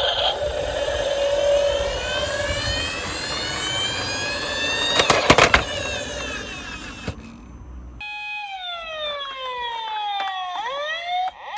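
Siren sound of a toy ambulance, its tones sliding upward over a low rolling rumble, with a sharp clatter about five seconds in. After a brief lull, the siren tones glide down and fall away.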